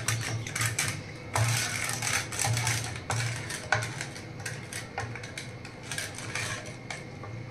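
Wooden hand churner (mathani) working yogurt and sugar in a metal pot: spun between the palms, then used to stir, with an irregular clatter of knocks and clicks against the pot.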